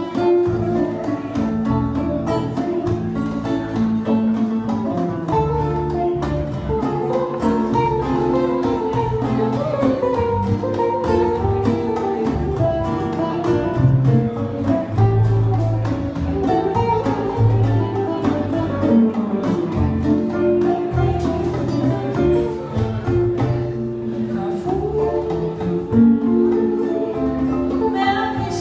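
Two guitars playing an instrumental passage live: a nylon-string acoustic guitar and an electric guitar, with plucked notes following one another.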